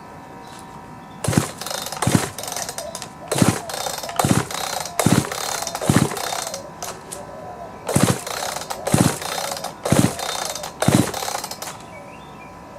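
Echo CS-590 chainsaw's recoil starter pulled about ten times on choke, a rasping pull roughly once a second with a short pause midway; the two-stroke engine turns over but does not catch.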